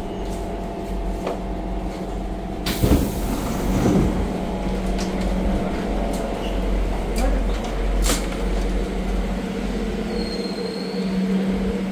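SMRT C651 metro train standing at a station platform with its equipment humming steadily, a sudden hiss of air about three seconds in as the doors open, and scattered clicks and knocks. A short high squeal sounds near the end.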